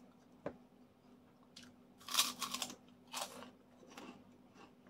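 Close-up crunching and chewing of crisp food by someone eating, with a cluster of loud crunches about two seconds in and another just after three seconds.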